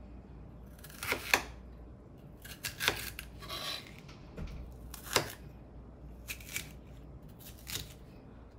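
Kitchen knife slicing a green bell pepper into strips on a plastic cutting board: several separate cuts, each a short crisp crunch through the pepper ending in a tap on the board.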